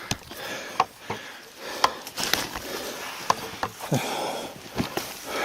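Footsteps crunching through dry forest undergrowth, twigs snapping and brush rustling, with a scatter of sharp cracks. Hard breathing is mixed in.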